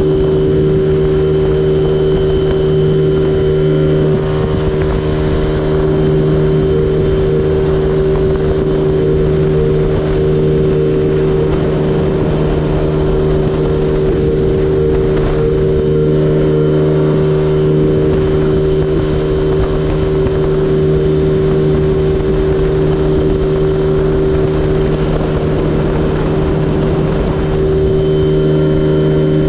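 Stock 50cc GY6 single-cylinder four-stroke scooter engine held at full throttle, droning at a steady, unchanging pitch at its 36 mph top speed. Wind rushes over the microphone.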